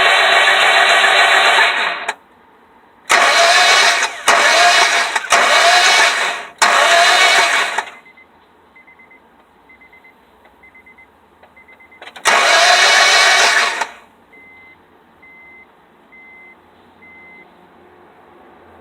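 2001 Honda Civic engine cranking on its starter without catching, a no-start: one crank that stops about two seconds in, four short cranks in quick succession, then after a pause one more, each cutting off abruptly. A faint high beep repeats about once a second in the gaps.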